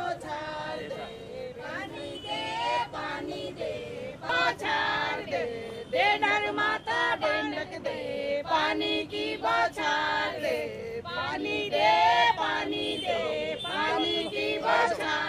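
A group of women singing a folk song together, unaccompanied, their voices holding and sliding between notes.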